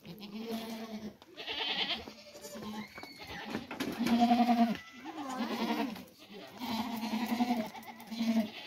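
Goats bleating over and over: about seven quavering calls, each under a second long, the loudest about four seconds in.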